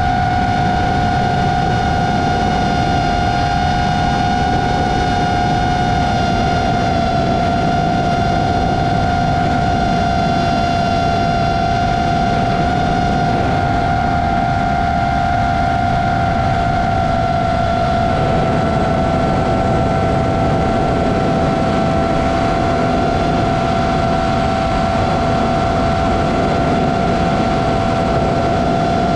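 FPV quadcopter's brushless motors and propellers whining at a nearly steady pitch in flight, with wind rush on the onboard camera's microphone.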